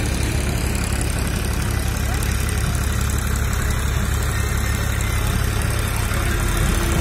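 An engine idling steadily: a low, even hum that does not change.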